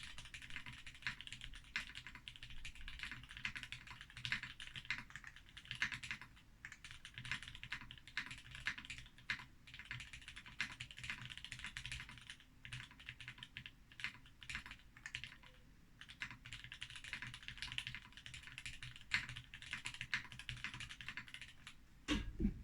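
Continuous fast typing on a Brutal60 60% mechanical keyboard with filmed and lubed H1 switches, a 1.5 mm POM plate and plate and case foam. Keystrokes come in rapid runs, thinning for a few seconds about two-thirds of the way through, with a low thump just before the end.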